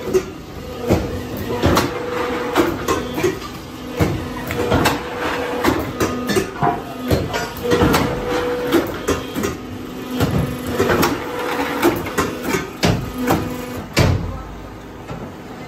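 Fly ash brick-making machinery running: a steady motor hum under repeated metallic clanks and knocks, about one a second.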